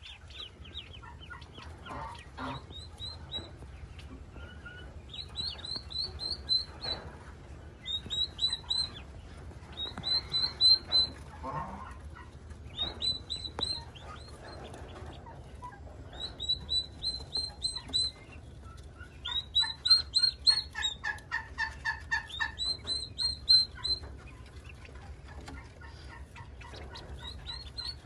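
Yellow ducklings peeping: runs of short, high, falling peeps, several a second, in bursts that come and go, with a steady low hum underneath.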